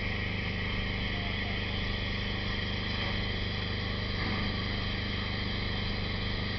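Steam locomotive standing with steam venting from the boiler, a steady hiss over a low hum.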